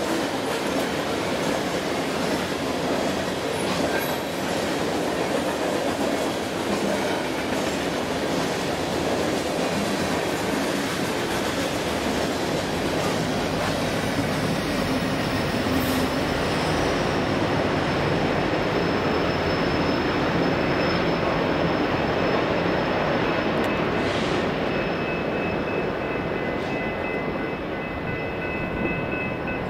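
Loaded coal train passing at speed: the steel wheels of the coal cars run over the rails with a steady, loud rolling rumble and rattle. In the second half a deeper rumble builds as a locomotive draws near, and near the end a few thin, steady, high-pitched squealing tones come in over it.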